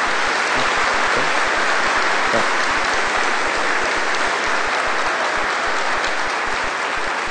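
A congregation applauding steadily.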